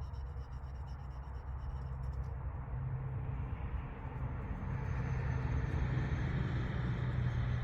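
A low, steady engine hum that grows louder about halfway through.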